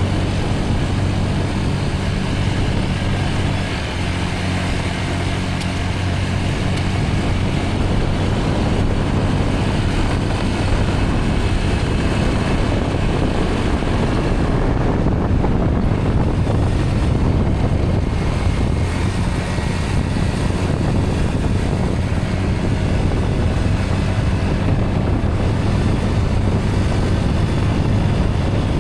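Vehicle engine running steadily with a low hum, mixed with road and wind noise, while driving.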